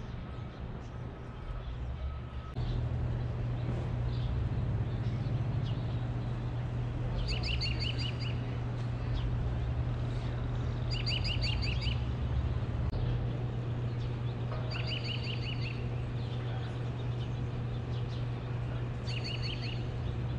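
A songbird singing a short phrase of quickly repeated chirps, four times, about every four seconds, over a steady low hum that gets louder about two and a half seconds in.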